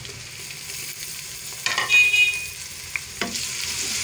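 Garlic-ginger paste and browned onions sizzling in hot oil in a pressure cooker pot, the sizzle growing louder near the end as the paste goes in and is stirred. About halfway, a spoon scrapes with a short ringing screech, followed by a couple of sharp knocks.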